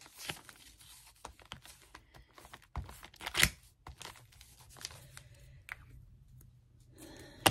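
Paper being handled on a craft table: scattered rustling and scratchy crackles, with a louder rasp about three and a half seconds in and a sharp click near the end.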